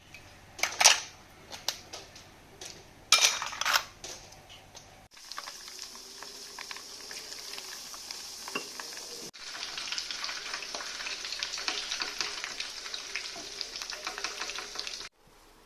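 Food frying in a hot pan: a steady sizzling hiss with crackle, stirred with metal utensils. A few loud clanks of utensil on pan come in the first few seconds. The sizzle jumps abruptly in level twice.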